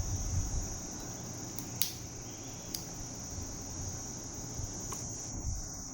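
Two crisp metal clicks about a second apart, with a fainter one near the end, as the sliding micro-adjustment extension of a watch clasp is moved notch by notch. A steady high hiss runs underneath.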